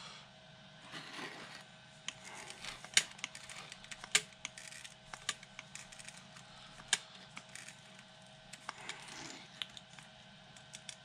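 Chemical-anchor resin gun being squeezed repeatedly, giving a run of irregular sharp clicks as two-part resin is pumped from the cartridge into a drilled hole in asphalt.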